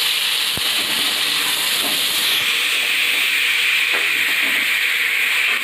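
Diced potatoes sizzling loudly and steadily in hot oil in a kadai as they are stirred.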